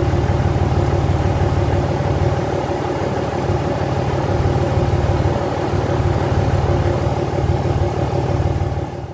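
Vehicle engine running steadily at a constant speed, then stopping abruptly near the end.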